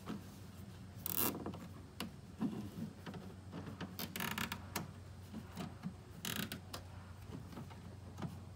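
Cable ties being pulled tight through their locking heads in short pulls, each a quick ratcheting zip. The louder pulls come about a second in, around four seconds in and again past six seconds, with smaller clicks between.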